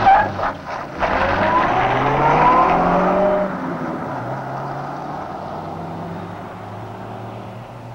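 A convertible car pulls away fast. There are a few sharp knocks at the start, then the engine revs with a tyre squeal for about two seconds, and the engine sound fades as the car drives off.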